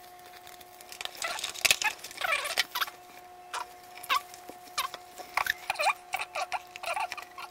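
Hands peeling stickers and rubbing them down onto a plastic toy aircraft carrier: a run of short, irregular squeaks that fall in pitch, mixed with brief crackles of sticker backing.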